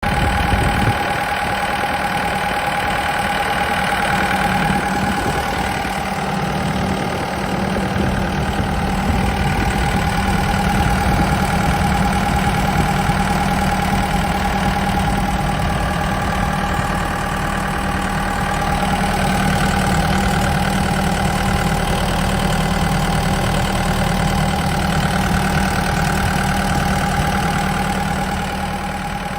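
Diesel engine of a 2007 Komatsu PC78US compact excavator running steadily at idle, with a steady whine held through it.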